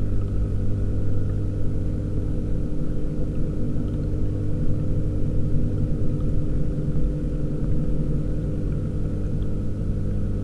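Steady low electric hum of an aquarium pump heard underwater inside the tank, with a faint rush of circulating water.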